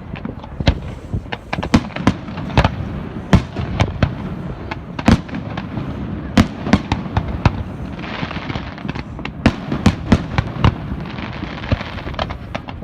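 Fireworks display going off: a rapid string of sharp bangs and booms from bursting shells, several a second, over a continuous low rumble. Two stretches of crackling hiss come in the second half.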